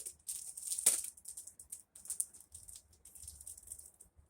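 Crinkling and rattling of packaging as small wrapped items are handled and pulled from a cloth stocking, in a quick run of crackly rustles with the loudest crackle about a second in.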